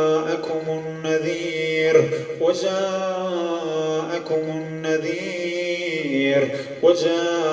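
A man's voice reciting the Quran in a slow, melodic chant, drawing out long held notes that bend gently in pitch, with a fresh phrase starting every second or two.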